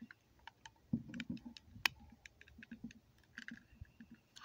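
Faint, irregular clicks and small knocks of a knife blade and a thin metal rod prying at the seam of a Harbor Freight battery tester's plastic case, with one sharper click about two seconds in.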